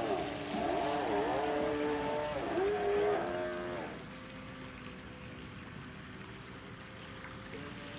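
Radio-controlled model motorboat running on the water. Its motor's whine rises and falls in pitch for about four seconds, then drops to a quieter, steady hum. Faint bird chirps over it.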